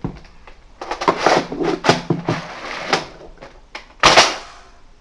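Nerf Mega Centurion blaster being handled and primed, with a run of plastic clicks and rattles, then one sharp, loud burst about four seconds in as it is fired with no dart loaded.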